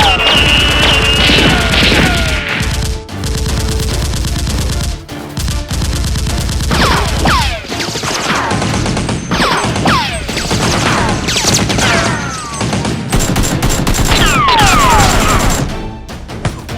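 Rapid gunfire sound effects, bursts of shots with repeated falling whistles, over background music.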